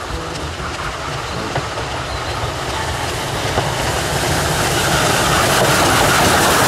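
Steam locomotive hauling a train of passenger coaches as it approaches, a running rumble that grows steadily louder.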